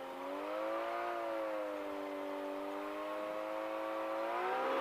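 CGS Hawk ultralight's engine and propeller drone steadily as the plane taxis through soft sand. The pitch rises slightly about a second in and climbs again near the end as the throttle is opened.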